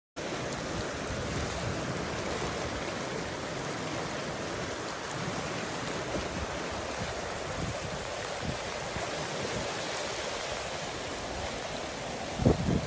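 Muddy floodwater rushing in a steady, even torrent across open ground after heavy rain. A brief low thump near the end.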